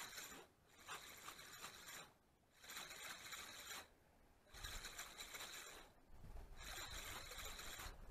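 Spinning reel being cranked to retrieve a lure, in runs of about a second and a half with short pauses between them. A low rumble joins about halfway through.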